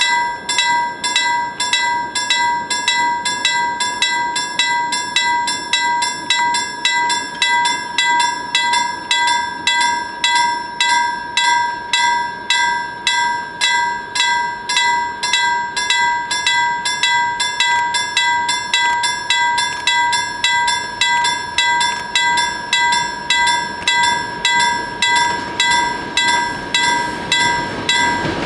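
Level crossing warning bell ringing steadily, about two strikes a second, as the crossing signals for an oncoming train. Near the end the noise of the approaching diesel freight train grows in underneath.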